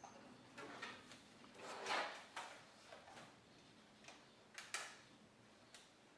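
Plastic clicks and snaps of a Toshiba Satellite C55 laptop's screen bezel being pressed onto the display lid, its clips catching one after another. A handful of separate clicks, the loudest about two seconds in and a quick pair near the end.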